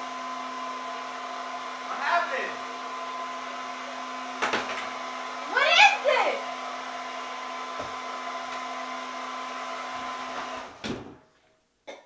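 Handheld hair dryer running with a steady whir and whine, switched off about eleven seconds in, its sound dying away. A voice cuts in briefly twice over it, and there is a sharp click partway through.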